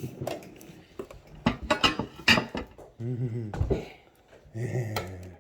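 Cutlery and dishes clinking and clattering during a meal, with a cluster of sharp clicks about a second and a half to two and a half seconds in. A short low hum with wavering pitch sounds about three seconds in, and another brief low one near the end.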